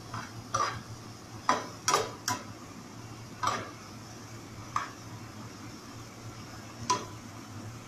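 A spatula scraping and knocking against a small frying pan while stirring beef that is being cooked down dry in its sauce. There are about eight separate strokes, a few with a short ring, over a steady low hum.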